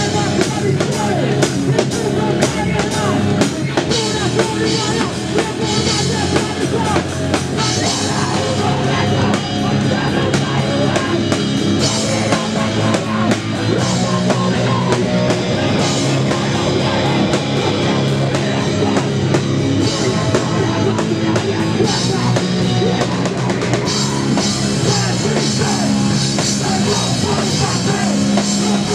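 Live rock band playing loud and without a break: drum kit, electric bass and guitar, with a singer at the microphone.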